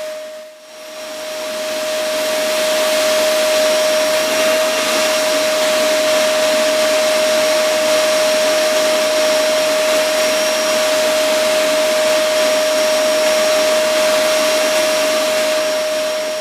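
Vacuum cleaner motor running with a steady whine. It drops out sharply about half a second in and spins back up over the next couple of seconds, then runs steadily.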